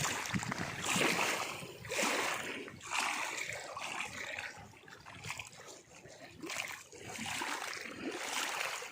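Water splashing and sloshing in repeated swells, roughly one a second.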